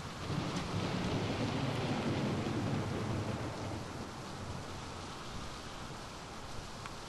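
Steady rain with a rolling rumble of thunder that swells in the first few seconds and fades away.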